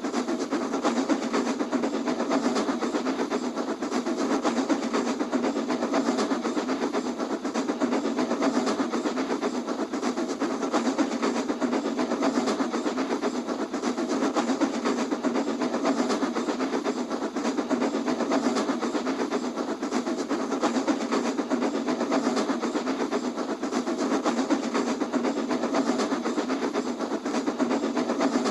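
A steady, unbroken clattering noise with a faint held tone in it, even in level throughout.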